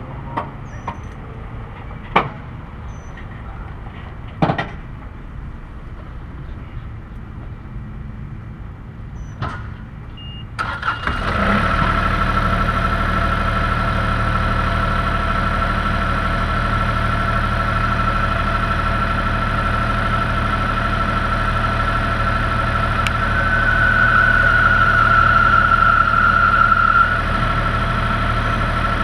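A few scattered clicks and knocks, then about eleven seconds in an engine or motor starts up and runs steadily with a low hum and a high whine. The whine grows louder for a few seconds near the end.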